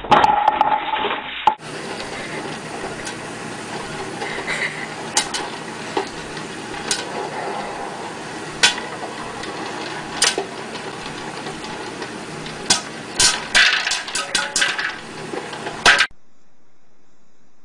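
Electric popcorn popper running with a steady noise while kernels pop: a few scattered pops at first, then a quick run of pops near the end. It is preceded by a short loud clatter lasting about a second and a half.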